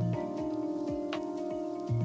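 Slow ambient background music: held tones, a low bass note at the start and again near the end, and a short bright chime-like strike about a second in.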